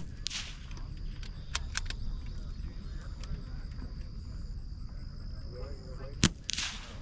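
.22LR rifle shots: two sharp cracks, one right at the start and one near the end, each followed about a quarter second later by a brief high hiss. Insects trill steadily in the background.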